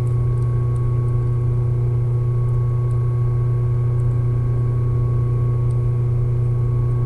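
Steady, unchanging electric hum with a few fainter higher tones, with faint small ticks from the thread and metal parts being handled.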